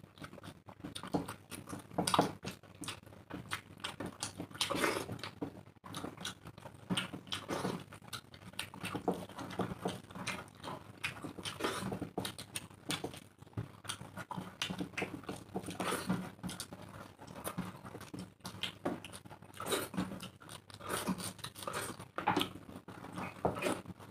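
Close-up eating sounds of two people eating rice and egg curry by hand: wet chewing and lip-smacking, with fingers mixing rice on the plates, as a steady run of irregular short smacks and clicks.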